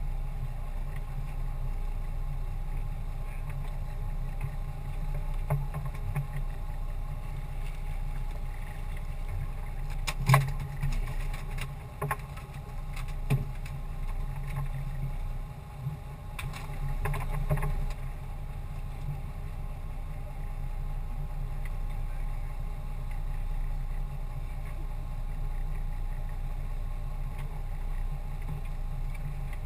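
Steady low background of a small open fishing boat on calm water, broken by a few sharp knocks on the boat: the loudest about ten seconds in, then more around twelve and thirteen seconds and a short cluster around seventeen seconds.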